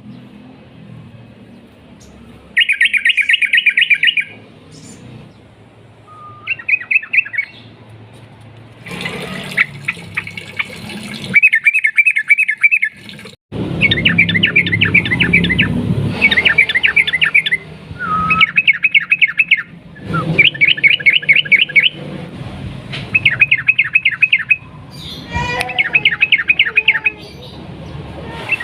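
Yellow-vented bulbul (trucukan) singing its long rapid 'ropel' phrases: about a dozen quick runs of chattering notes, each lasting one to two seconds, with short pauses between. A low background rumble sits under the song in the middle stretch.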